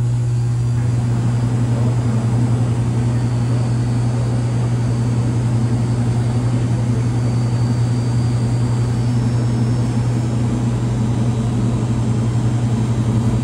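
Steady low machine hum, one even tone with a fainter higher one above it, unchanging throughout.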